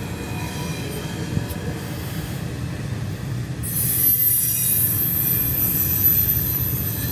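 Double-stack intermodal freight train's cars rolling past with a steady low rumble. About halfway through, a high-pitched wheel squeal starts and holds as the train gets a little louder.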